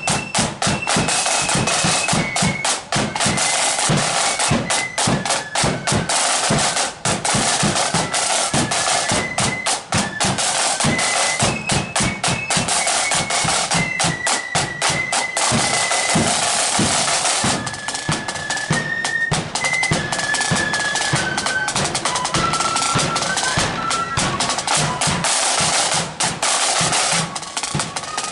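Marching flute band playing a tune: massed flutes carry a single melody over rapid snare drum rolls and a bass drum beat.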